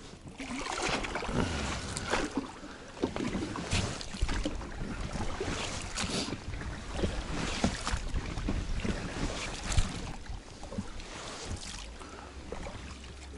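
Wind rumbling on the microphone, with irregular rustles and knocks from outdoor handling.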